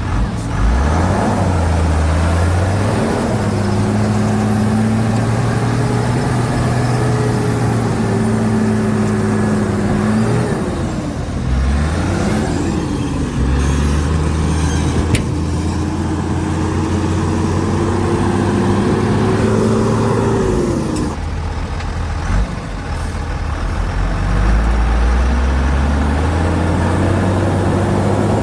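Shantui DH17C2 bulldozer's diesel engine working under load, its pitch rising and falling as the load changes. The engine note drops about 21 seconds in and climbs back up over the next few seconds.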